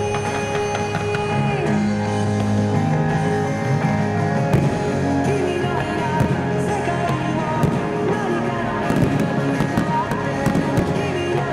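Rock-style anime song with singing and guitar, with fireworks cracking and bursting over it, a few sharp cracks about halfway and several more near the end.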